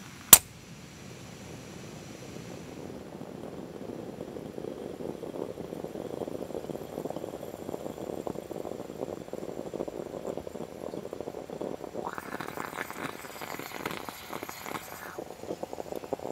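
The metal lid of a moka pot snaps shut once, then the moka pot on a gas camping stove gurgles and sputters, louder and denser as it goes and harsher for a few seconds near the end: the water has come to the boil and coffee is being forced up into the top chamber.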